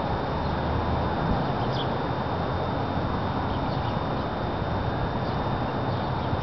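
Outdoor ambience: steady wind noise on the microphone, with a few faint, short bird chirps. No siren is sounding.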